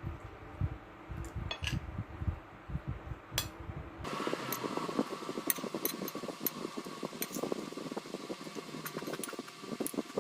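Eating sounds: chewing and the light clink of cutlery on a plate. A steady mechanical hum begins abruptly about four seconds in.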